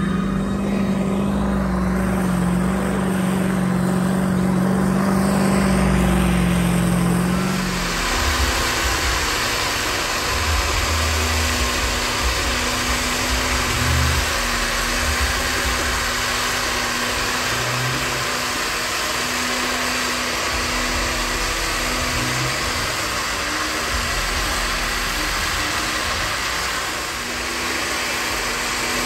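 Lifted mud truck engines running hard through stack exhausts. For about the first eight seconds one engine is held at a steady high-revving note. It then switches suddenly to a rougher, noisier engine sound with a steady drone and a few brief revs.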